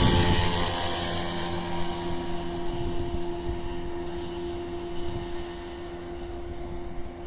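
1970 Mercury 20 hp two-cylinder two-stroke outboard motor running at a steady speed, its sound slowly fading.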